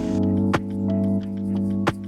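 Background music: sustained keyboard-like chords with a sharp percussive tick about half a second in and another near the end.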